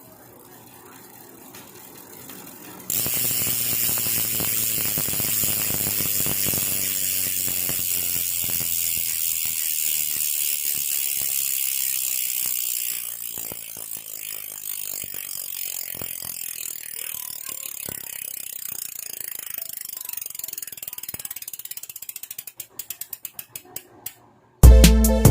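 La Bici rear hub's four-pawl freehub clicking as the wheel spins and coasts: a fast, dense buzz of clicks that gets louder about three seconds in, drops back about halfway, then slows to separate ticks and stops near the end. It sounds like a six-pawl hub. Music starts at the very end.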